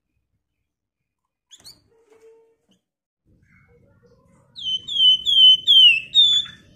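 A caged Javan fulvetta (flamboyan, wergan Jawa) singing: a brief high chirp about a second and a half in, then near the end a quick run of about five loud, falling whistled notes.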